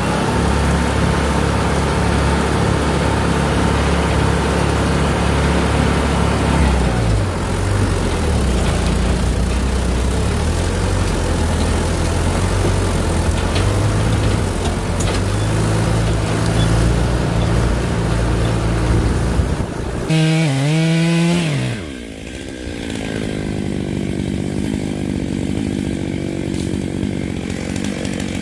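Chainsaw running hard through timber, its engine pitch shifting under load. About twenty seconds in it comes off the throttle, the pitch falling sharply, and it runs on quieter, near idle.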